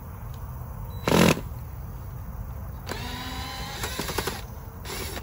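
Cordless drill driving screws into wood, run in short bursts: a brief, loud burst about a second in, then a longer run of the motor from about three seconds in, and another short burst near the end.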